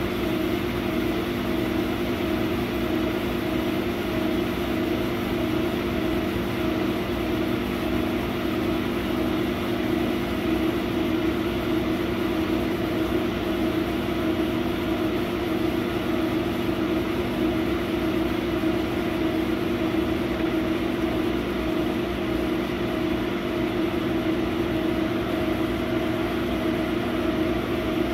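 A 100-watt laser cutter running as it cuts MDF sheet: a steady, even machine hum with a constant low pitch, unchanging throughout.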